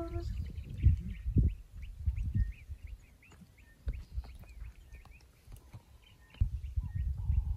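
Small birds chirping, a rapid scatter of short high chirps throughout, over low gusts of wind rumbling on the microphone that come and go, stronger near the start and the end.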